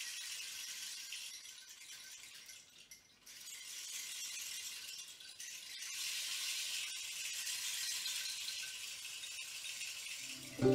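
Rainstick being tilted: a steady rushing hiss of pellets trickling down inside the tube, with a short break about three seconds in before it runs on. Music with plucked notes comes in at the very end.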